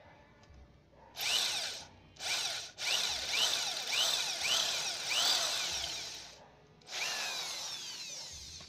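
Electric hand drill boring into a broken exhaust stud in a motorcycle cylinder head. It runs in four spurts: two short ones starting about a second in, then a long run of about three and a half seconds, and a last one near the end. Its sound sweeps down in pitch over and over while it cuts.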